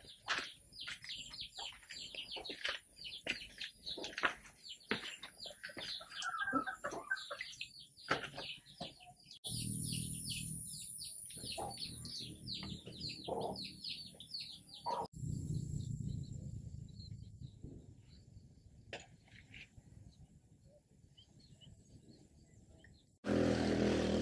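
Birds chirping and singing in quick, overlapping calls, dense at first and thinning out from about the middle, over a faint steady high whine. About a second before the end a louder steady sound cuts in suddenly.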